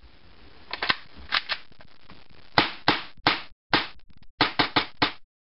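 Gas blowback airsoft pistol, an STI Tactical made by KWA with a metal slide, firing a quick string of about eight sharp shots, the slide cycling on each; a few lighter clicks come first.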